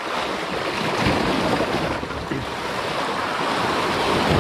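Sea waves washing against shoreline rocks, a steady rushing hiss that grows a little louder about a second in, with wind blowing on the microphone.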